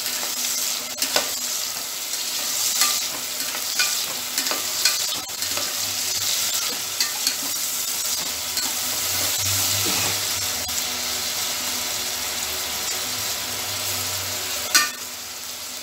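Chopped onions sizzling steadily as they fry in mustard oil in an open pressure cooker, stirred with a perforated metal ladle that knocks and scrapes against the pot now and then, with one louder knock near the end.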